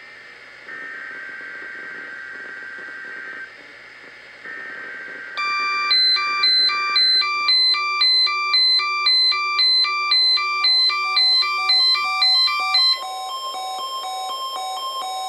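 Emergency Alert System data tones: three bursts of SAME header data a second apart, warbling around 1.5–2 kHz. From about five seconds in, a loud high electronic alarm beeps about twice a second over a steady lower tone. Near the end the beeping gives way to a steady electronic alarm tone.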